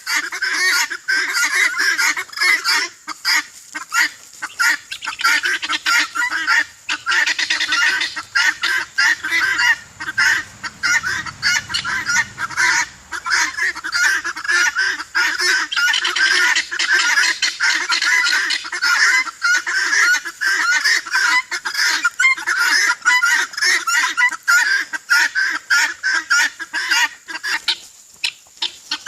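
A flock of birds calling without a break: a dense overlapping chatter of many short honking calls.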